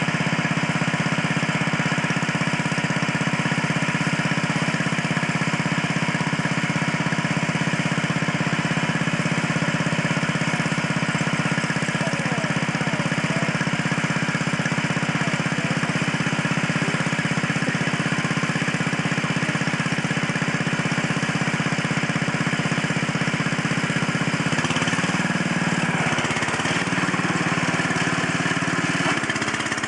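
Riding garden tractor's engine running steadily. Near the end its pitch dips and wavers as the tractor pulls away.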